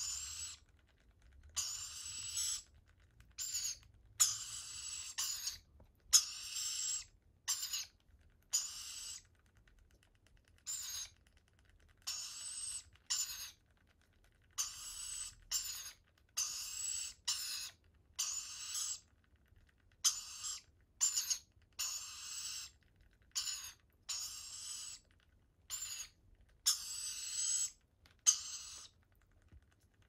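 Rainbow lorikeet chicks giving harsh, hissing begging calls while being spoon-fed, about one call a second, each with a thin high whistle running through it.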